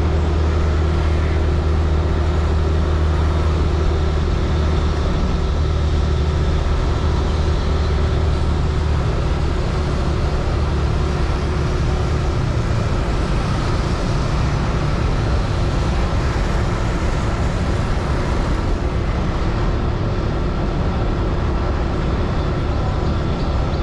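Yamaha Aerox scooter's single-cylinder engine running on the move, a steady low drone under wind and road noise; the drone becomes less even from about nine seconds in.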